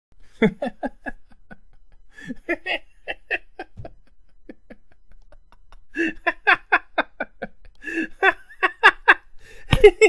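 A man laughing in bouts of quick, rhythmic 'ha-ha' pulses, about four to five a second, with short pauses between bouts; the loudest burst of laughter comes near the end.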